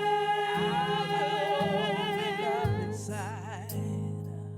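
Slow gospel worship song: voices holding a long note over a steady keyboard or bass accompaniment, ending in a wavering vocal run before the singing thins out near the end.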